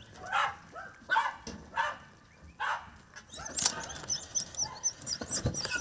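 Podenco hounds barking and yelping on the hunt: several separate barks in the first half, then softer.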